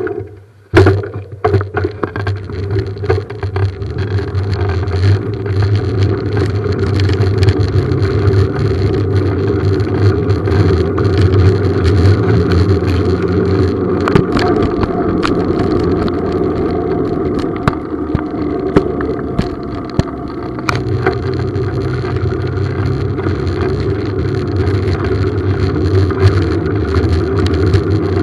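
Steady rumble of a bicycle rolling over gravel-strewn asphalt, tyre noise and wind on a handlebar-mounted action camera, after a few sharp knocks about a second in. The rumble builds over the first few seconds as the bike picks up speed.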